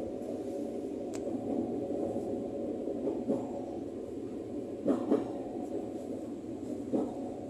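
Ex-Tokyo Metro 05 series electric commuter train heard from its cab while running: a steady rumble of wheels on rail. A few clacks over rail joints stand out, two close together about five seconds in and another about seven seconds in, and there is a sharp tick about a second in.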